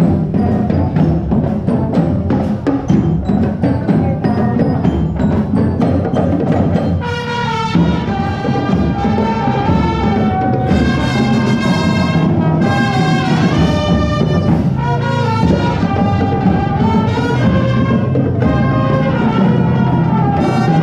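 Music with a steady drumbeat. A pitched melody comes in over the beat about seven seconds in.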